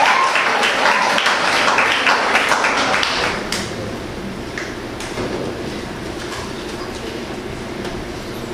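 Audience applauding, the clapping dying away about three and a half seconds in to a few scattered claps over low room noise.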